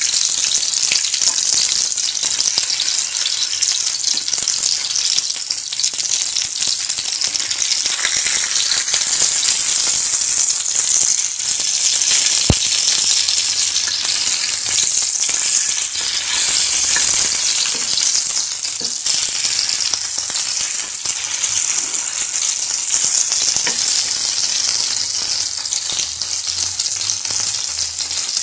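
Masala-coated Indian mackerel shallow-frying in hot oil on a dosa griddle, sizzling steadily while the pieces are turned over with a metal spatula. There is a single sharp tap near the middle.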